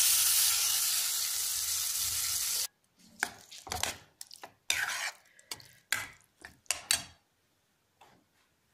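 Spiced cauliflower paste sizzling in hot oil in a stainless-steel kadai: a loud steady hiss that cuts off suddenly about two and a half seconds in. Then a metal spatula scrapes and stirs the paste against the steel pan in short, irregular strokes for about four seconds.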